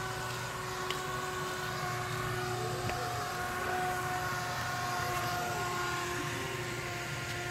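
Steady mechanical hum with a held pitched whine, unchanging throughout.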